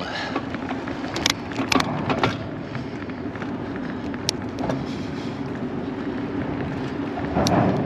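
Bicycle towing a Topeak Journey cargo trailer rolling along an asphalt path: a steady rush of riding noise with a few sharp clicks and rattles scattered through it.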